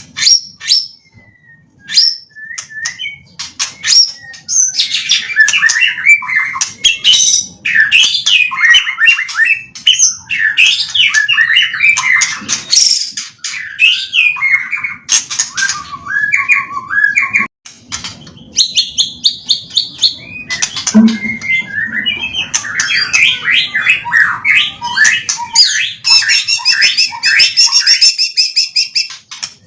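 White-rumped shama (murai batu) singing a long, fast, varied song of whistles, trills and chattering phrases, its repertoire filled with calls copied from tutor birds. It starts with a few scattered notes, then sings almost without pause, breaking off briefly about 17 seconds in.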